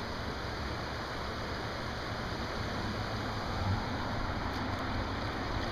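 Steady rush of river water flowing over a shallow riffle.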